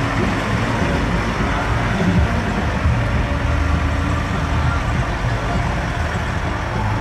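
Diesel engine of an Oshkosh HEMTT 8x8 military fuel tanker truck running steadily as the truck drives past.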